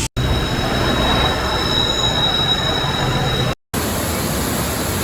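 A train running, with a steady high-pitched squeal of wheels on rail over a loud rumble. It cuts off abruptly about three and a half seconds in, and after a brief gap a steady rushing noise follows.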